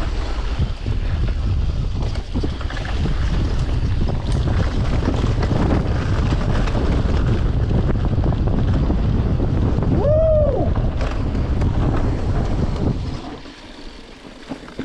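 Wind buffeting the microphone, with rumble from a mountain bike rolling over the trail. A short tone rises and falls about ten seconds in, and the rushing noise dies down near the end.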